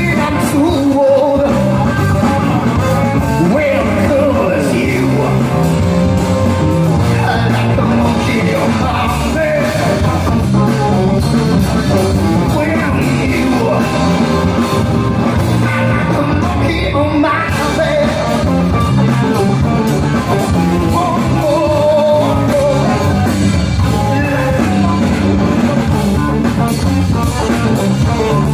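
Live rock band playing loudly, with electric guitar, bass guitar and a singer belting the vocals into a microphone.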